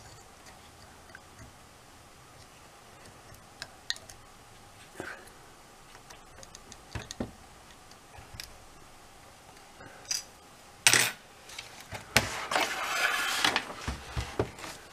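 Small scattered plastic clicks and scrapes as a small tool pries at the tabs of the little plastic cover over a CD player's laser pickup. Near the end there is one louder knock, followed by a second or so of rattling handling noise.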